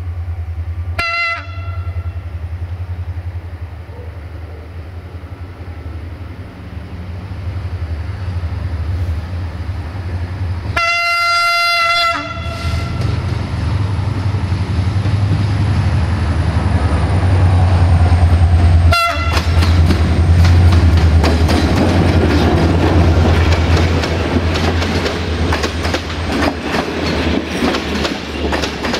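Diesel-electric locomotive approaching and passing close, its engine rumbling louder as it nears, with three horn blasts: a short one about a second in, a longer one near the middle and another short one. As the coaches go by, the wheels clack steadily over the rail joints.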